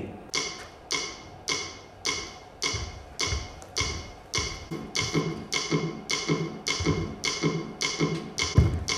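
Steady ticking beat, clock- or metronome-like, just under two ticks a second. Low tones and occasional low thuds join it from about halfway through.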